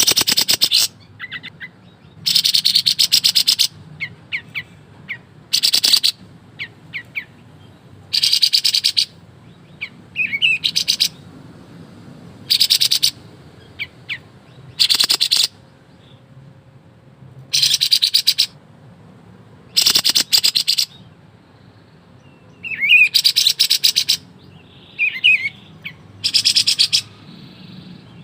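A kapas tembak songbird singing in repeated bursts of fast, dense rattling trills ("ngebren"), each lasting about a second, every two to three seconds, with short high chirps in between.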